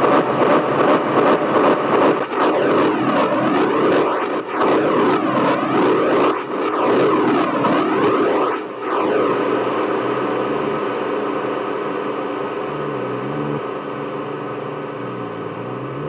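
Electronic music from a synthesizer run through effects pedals: a pulsing tone with whooshing pitch sweeps that dip and rise. About nine seconds in the pulsing stops, leaving a sustained drone with a few low notes that slowly fades.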